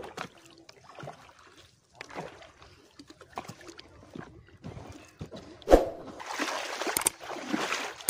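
Water splashing and sloshing in short, uneven strokes as a person swims and wades through a river. A sharp thump comes about three quarters through, followed by a steadier rush of water noise.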